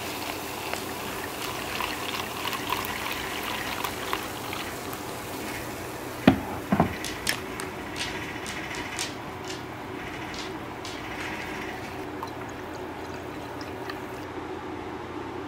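Liquid pouring into a glass and foaming, with a crackling fizz. Two sharp knocks come a little past six seconds in, then a few lighter clicks, then a soft steady fizz.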